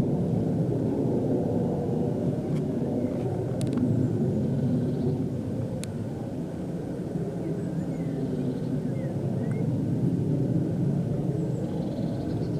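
Steady low rumble of an aircraft overhead, which the recordist finds a strange plane noise.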